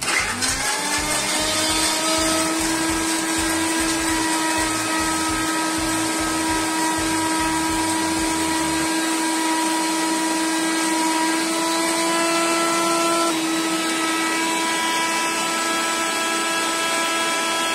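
Electric mixer-grinder spinning up and then running at a steady whine, grinding tomatoes with a little water. A low, rapid throbbing runs under the whine for about the first half, and the pitch shifts slightly about thirteen seconds in.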